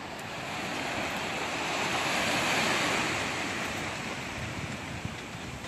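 Small waves breaking and washing up on a sandy shore: a hiss of surf that swells to its loudest about halfway through and then dies back.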